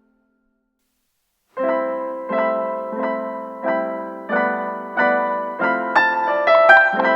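Background piano music. After about a second and a half of silence, repeated chords come in at an even pulse, and a higher melody joins near the end.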